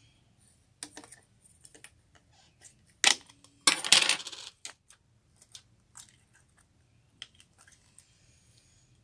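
Small hard items clatter as they drop into a container of slime: a short rattle about three seconds in, then a longer, denser one. Scattered sharp clicks and crackles of slime being handled run around them.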